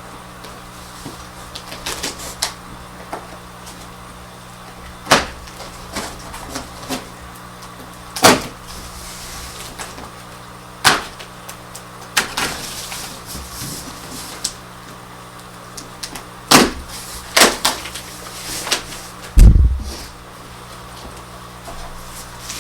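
A cardboard shipping box being opened and unpacked: irregular sharp snaps and crackles of cardboard, tape and packing material, with rustling between them and a low thump near the end as something is set down.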